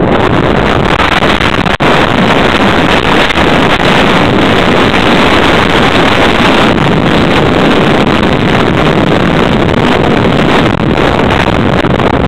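Heavy wind buffeting on a mountain bike's handlebar-mounted camera microphone during a fast downhill run, mixed with the rattle and jolts of the bike over a rough dirt track.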